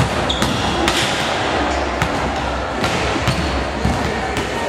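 Volleyballs being hit and bounced in a large sports hall: sharp smacks at irregular intervals, about eight in under five seconds, over a steady hall background.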